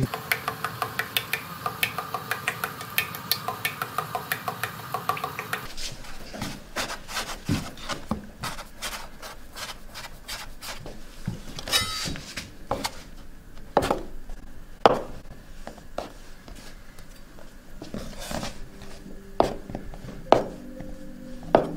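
A fork beats dough in a mixing bowl with a fast, even clicking of about four or five strokes a second. The dough is then worked by hand on a wooden board, giving scattered soft knocks and rubbing. Near the end a knife cuts the dough log into pieces, with a few sharp knocks on the board.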